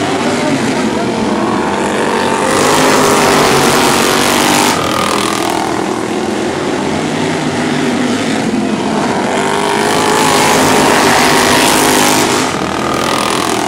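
Several outlaw-class racing lawnmowers running hard around a dirt oval, their small engines revving up and down through the turns. The sound swells twice as the pack passes close, about two and a half seconds in and again around ten seconds.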